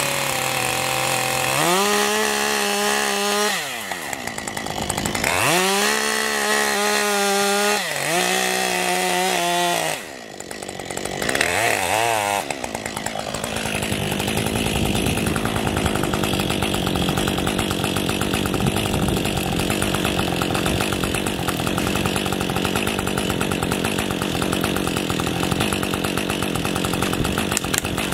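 Husqvarna 550 XP two-stroke chainsaw revving up to full throttle and back down in several bursts while cutting into an icy fir trunk. About halfway through it drops to a steady idle.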